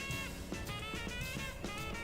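Jazzy background music with a drum kit keeping a steady beat under sustained melody lines.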